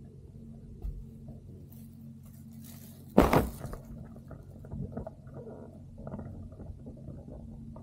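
Yellow plastic sheet rustling and crinkling as it is pulled over a motorcycle, with one loud rustle about three seconds in followed by scattered small crackles, over a steady low hum.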